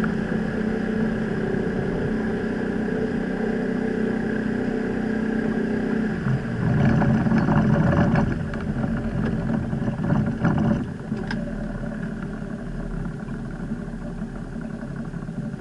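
Outboard motor driving a small fishing boat under way, steady and fairly loud, with a louder rushing stretch about six to eight seconds in. About eleven seconds in the sound drops lower and quieter as the motor is throttled back and the boat slows.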